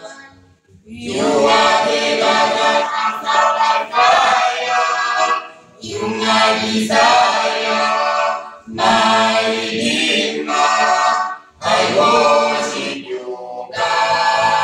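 A small mixed vocal group of two men and two women singing a cappella in harmony, in sung phrases broken by short breath pauses about every three seconds.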